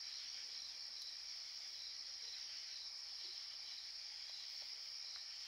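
Chorus of night insects: a faint, steady high-pitched drone that holds unchanged throughout.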